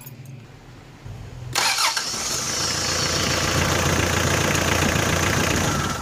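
Mitsubishi 4D56 four-cylinder diesel engine starting about a second and a half in and settling into a steady idle, catching quickly now that the air has been bled from its fuel system.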